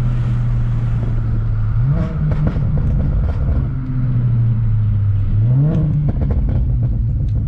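BMW 335i's N54 inline-six, converted to a single turbo, heard from inside the cabin. It runs steadily, and its revs jump up quickly twice, as on downshifts while the car slows. Each rev jump is followed by a quick run of exhaust pops and crackles from its crackle tune.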